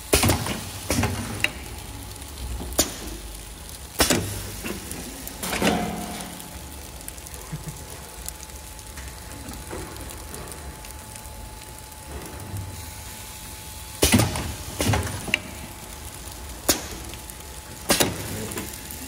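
Automatic nurungji (rice cracker) machine running with a steady low hum and a faint whine, broken by sharp metallic clanks and clacks from its hot plates, press and crack-removing bar as it cycles. The clanks come in clusters near the start and again in the last third, with a quieter stretch in the middle.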